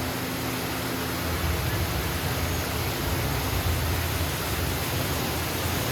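Steady ambience of an indoor boat ride: an even hiss with a low hum underneath, a little louder from about a second and a half in.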